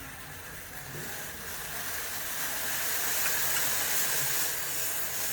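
Pan of water with grated ginger and ajwain heating on a gas stove at medium flame, giving a steady hiss that grows gradually louder as it comes toward the boil.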